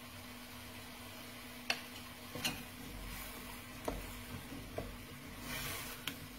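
Potatoes and pancetta frying in a pan, stirred with a utensil that knocks against the pan about five times, with a short louder burst of sizzling near the end.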